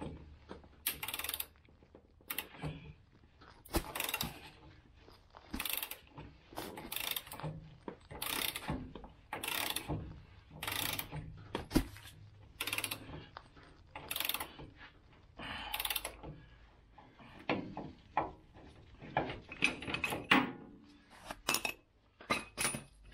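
Hand ratchet clicking in repeated strokes, about one every second or so, as it turns the forcing screw of a ball joint press to push out an upper ball joint on a Jeep Wrangler JK's Dana 44 knuckle. The old ball joint is knurled and stubborn to press out.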